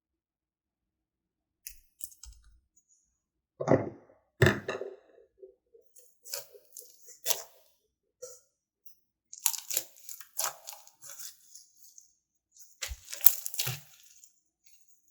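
Foam ball slime mixed with clay being pressed and squished by hand, making irregular crackles and pops in clusters with short silent gaps. It starts after a second or two of silence.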